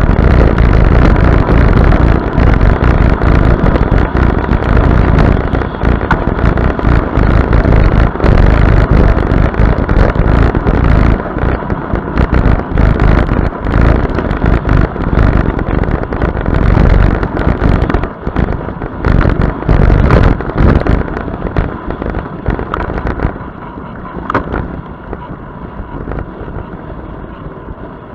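Wind buffeting an action camera's microphone on a fast bicycle descent, a loud, rushing, gusting noise. It drops over the last few seconds.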